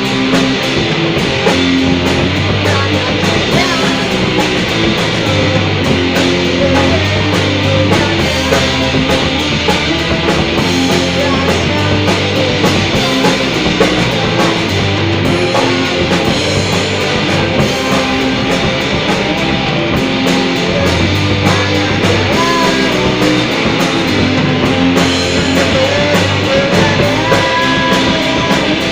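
Rock band playing: distorted electric guitars, bass and a drum kit, steady and loud, with no vocals.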